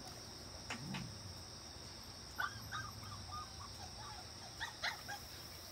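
Faint low dog growl with a few short, high squeaks from the dogs in the pen, over a steady high drone of insects.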